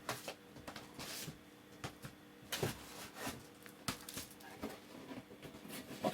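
Plastic Blu-ray cases and their packaging being handled, with scattered light clicks and rustles.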